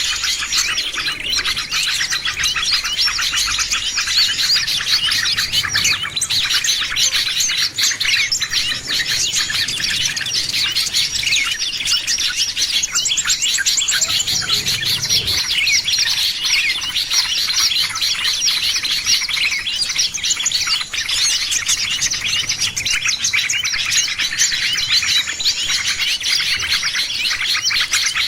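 A dense chorus of many small songbirds, with rapid overlapping chirps and trills that go on without pause. This is a bird-trapping lure recording (pikatan) meant to draw in small birds.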